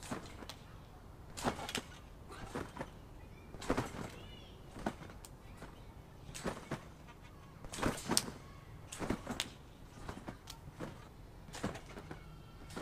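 A trampoline being bounced on: repeated sharp thumps and creaks of the mat and frame as someone lands and rebounds, often in quick pairs, about one bounce a second.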